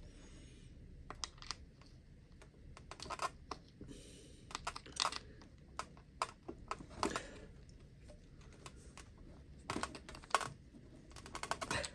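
Small plastic clicks and rattles from hands working a wheel on and off the hub of an RC car, with short handling noises in scattered clusters.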